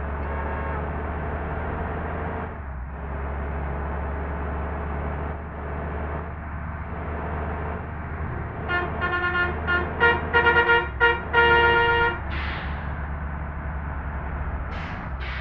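Indonesian bus telolet horn, a multi-tone musical air horn, playing a quick run of short staccato notes about nine seconds in, followed by a brief blast and two short toots near the end. A steady low drone runs underneath.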